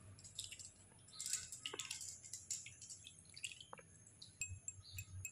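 Hand washing a bowlful of small freshwater fish in water in a steel bowl: faint, irregular splashes, drips and wet squelches as the fish are stirred and lifted.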